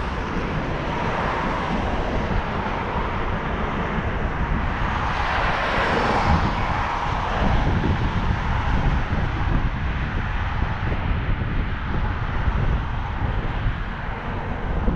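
Wind rumbling on the microphone outdoors. A broad rushing sound swells and fades away between about five and seven seconds in.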